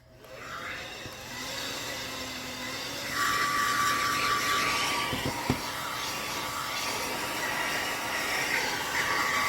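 Handheld hair dryer blowing steadily, switched on at the start and louder from about three seconds in, with a thin high whine over its rush of air; it is heating a phone's back glass to soften the adhesive. A short click about halfway through.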